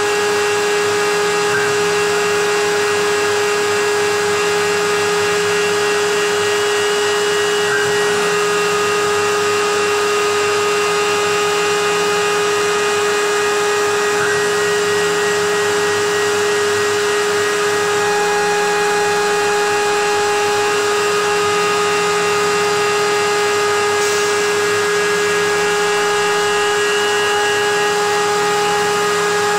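CNC milling spindle running with a steady high whine, over the steady hiss of the cyclone-vacuum dust extraction drawing air through the hose at the cutter.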